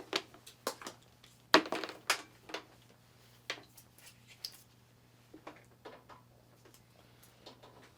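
Scattered light clicks and knocks from handling a corded electric brad nailer and plugging in its power cord, the sharpest about a second and a half in, over a faint steady low hum.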